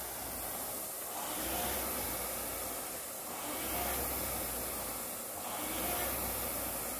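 Air-resistance fan flywheel of a Concept2-style indoor rowing machine whooshing under steady rowing, swelling with each drive stroke about every two seconds.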